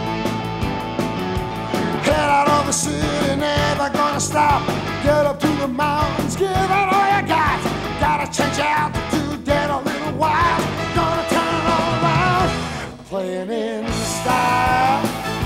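Rock-style theme music with a singing voice over a steady beat, briefly dropping away about thirteen seconds in before picking up again.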